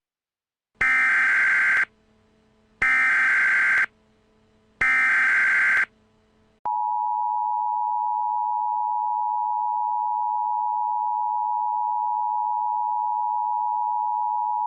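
Emergency Alert System tones: three loud one-second bursts of SAME header data, a harsh digital screech, spaced about two seconds apart. These are followed by the EAS two-tone attention signal, a steady two-note tone held for about eight seconds that cuts off sharply.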